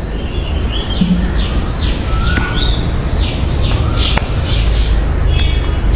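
Small birds chirping, a run of short quick chirps about two a second, over a steady low rumble.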